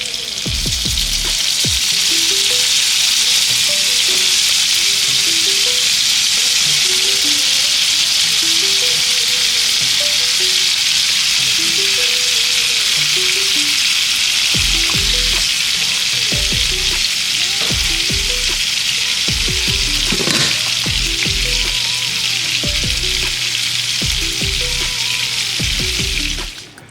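Food sizzling in a frying pan, a steady hiss that stops just before the end. There are a few low bumps along the way.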